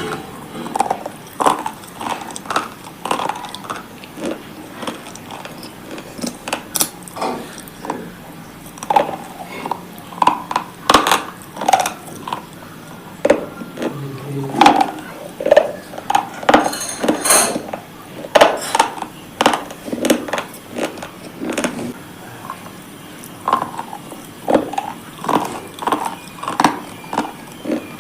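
Repeated crisp crunches and snaps of brittle slate items or chalky cubes being crunched, about one or two a second with short pauses, a few sharper snaps standing out.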